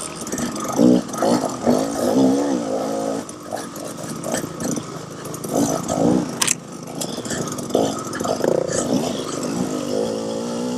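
KTM 300 XC-W two-stroke dirt bike engine under race throttle, revving up and down repeatedly as the rider accelerates and eases off, with a sharp knock about six and a half seconds in.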